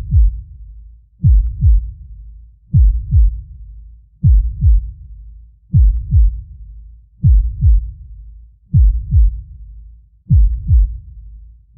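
Deep heartbeat sound effect: a slow, steady lub-dub, two thumps in quick succession about every second and a half, with a low rumble between beats.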